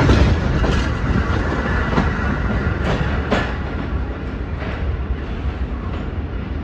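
Subway train running past close by on elevated track, its wheels clicking over rail joints several times, the noise slowly fading as it pulls away.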